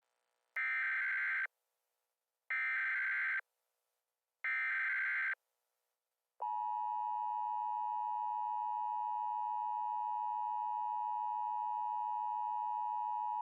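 Emergency Alert System tones: three short data bursts of the SAME header, about a second each with a second's gap between them, then the steady two-tone EAS attention signal starting about six seconds in. Together they mark the start of a new alert whose spoken message follows.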